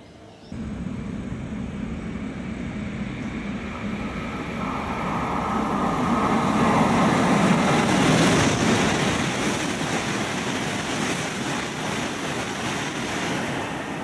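E7 series Shinkansen bullet train running through a station at high speed without stopping. A rushing roar of air and wheels starts abruptly about half a second in, builds to its loudest around the middle as the train passes, and eases off near the end.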